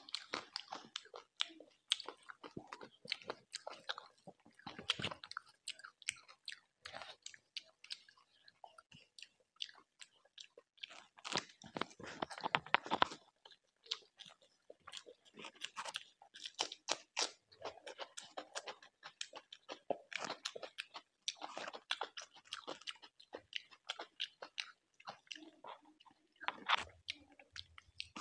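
Close-miked eating sounds: chewing and biting of curried chicken and rice, with many irregular sharp wet clicks from the mouth and a louder stretch of chewing about halfway through.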